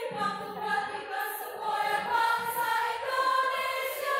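Women's choir singing, several voices holding long notes together.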